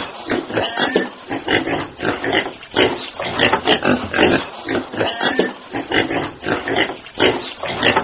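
Several pigs grunting and oinking, short grunts following one another quickly and overlapping, without a pause.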